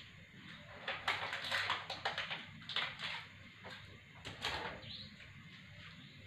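Rummaging in an open refrigerator for a drink: a run of irregular knocks, clinks and rattles of items being moved, dying away near the end.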